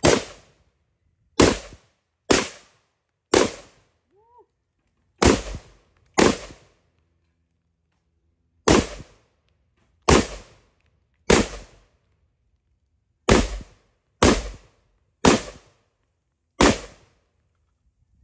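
About thirteen single gunshots from a semi-automatic gun, fired one at a time at a slow, uneven pace roughly one to two seconds apart, each trailing off briefly.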